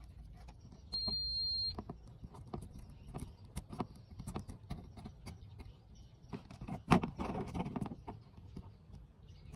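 A single high electronic beep lasting under a second, then scattered small clicks and taps of tools and parts being handled, with one sharp click about seven seconds in followed by rustling.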